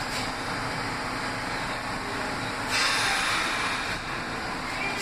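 R46 subway train standing at the platform with its doors closed, its equipment running with a steady rumble. About three seconds in, air hisses out sharply for about a second as the air brakes release for departure.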